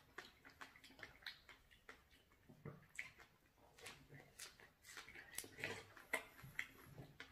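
Quiet, irregular wet clicks and lip smacks of people biting into and chewing fresh Seolhyang strawberries.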